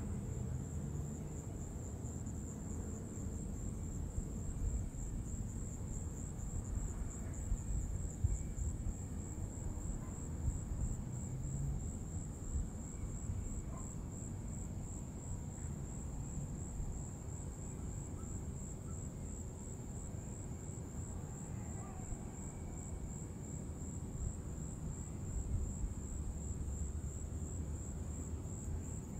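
Insects trilling steadily in one continuous high-pitched drone, over a low, uneven rumble.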